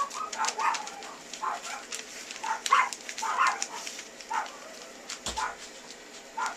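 Toy poodle puppies yipping and whining in many short bursts, with sleigh bells jingling.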